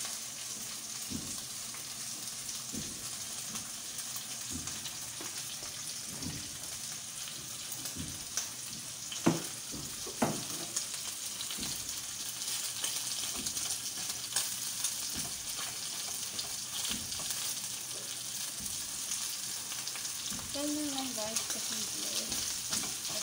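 Pieces of meat sizzling as they brown in hot oil in a frying pan, a steady high hiss. A metal fork turning the pieces clicks against the pan now and then, with two sharper knocks about nine and ten seconds in.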